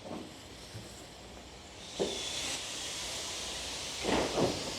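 Steam locomotive letting off steam: a steady hiss sets in about two seconds in and carries on, with a few dull thumps, two close together near the end.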